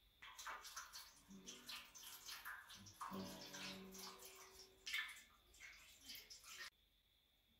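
Water poured from a stainless steel jug splashing into a stainless steel tray, with some low steady tones in the middle of the pour. It starts just after the beginning and cuts off suddenly near the end.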